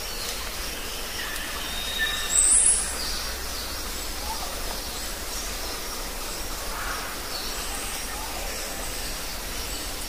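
Forest ambience: a steady background hiss with scattered thin, high bird calls, and one loud, short, high rising call about two and a half seconds in.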